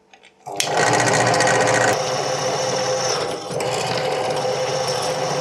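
A couple of small clicks as the benchtop drill press's start button is pressed, then its motor starts about half a second in and runs steadily as the bit drills into a heavy metal part from an induction motor, with a brief dip in level near the middle.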